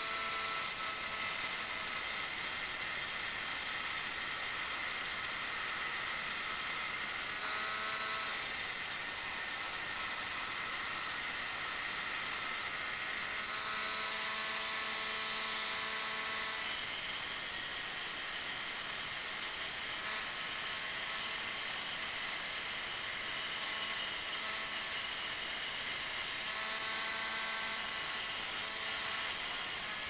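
Rubi DT-180 7-inch wet tile saw running with a steady high whine as its water-cooled diamond blade plunge-cuts into the back of a ceramic tile. The tone shifts briefly three times as the blade is worked into the tile.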